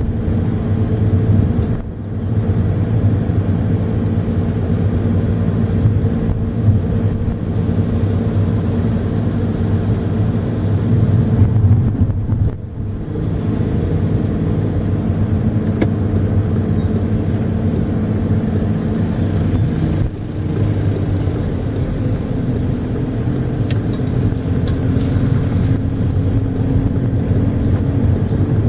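Diesel engine of a 2011 VW CrossPolo with 7-speed DSG automatic, running steadily at low speed with tyre and road noise, heard from inside the cabin. The sound dips briefly about 2 and 13 seconds in.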